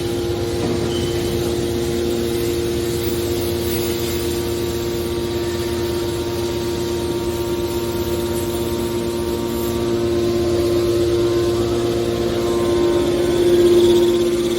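Hydraulic metal wire baler running: a steady machine hum that swells briefly in loudness near the end.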